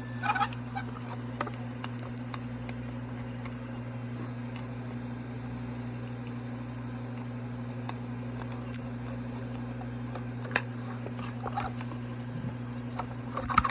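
Scattered light clicks and taps from screws and a screwdriver being handled while the plastic figure is screwed back together, over a steady low hum.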